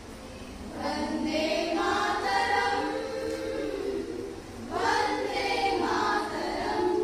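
A group of women singing a patriotic song together as a choir, in two phrases, the first beginning about a second in and the second about five seconds in.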